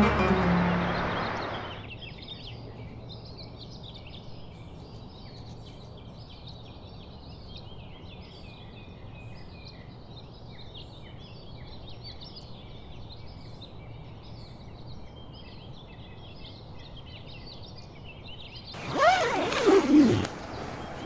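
Music fades out in the first two seconds, leaving small birds chirping at dawn over a steady faint hiss. Near the end, a loud rasping sweep as a tent door is zipped open.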